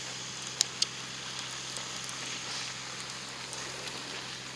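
Boat under way: a steady rush of wind and water over a low, even hum, with two sharp clicks under a second in.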